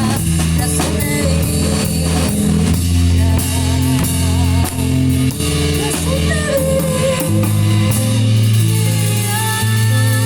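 Band playing an instrumental passage of a Latin pop song: drum kit and bass holding a steady beat under guitar, with a wavering lead melody line over the top.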